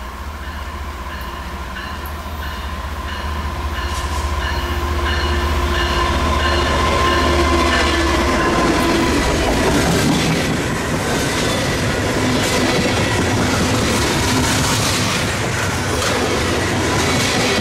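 Heavy loaded coal train passing: the lead diesel locomotive's engine drone and whine grow louder as it comes close and goes by. Then the loaded coal cars roll past with their wheels clacking over the track and some wheel squeal.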